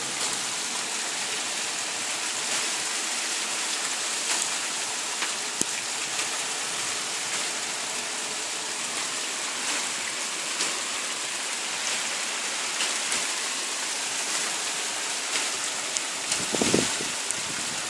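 Steady hiss of hailstones pelting a tarmac street, with scattered sharp ticks of single stones striking close by. A short lower-pitched sound stands out near the end.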